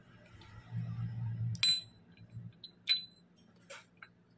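Small metal engine parts clinking against each other as they are handled, three sharp clinks with a short ringing tail, the loudest about a second and a half in.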